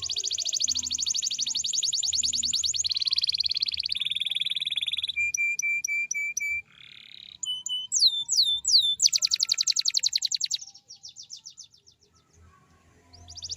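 Domestic canary singing in long, fast rolling trills, one phrase after another: a long buzzing roll, a lower roll, a run of six clear repeated notes, a few down-slurred whistles, then another fast roll that fades away. After a short pause a new roll starts near the end.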